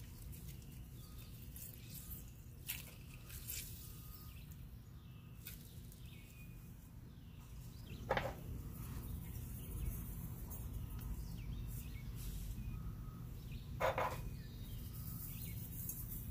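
Steady low background hum, with two short knocks about eight and fourteen seconds in as small ceramic spice bowls are picked up and handled.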